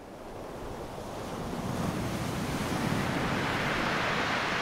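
Sound effect of rushing ocean surf, a steady noise without tune that swells gradually in loudness.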